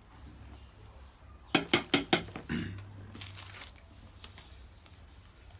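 Four quick, sharp taps in a row about a second and a half in, then a short vocal sound.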